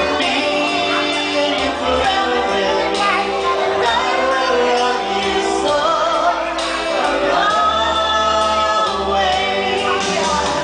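Karaoke singing: a voice sings into a microphone over a pop backing track. Both play steadily through loudspeakers.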